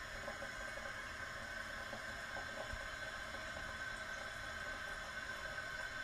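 Water running in a flushed toilet with a steady hiss, no sudden surge or gurgle.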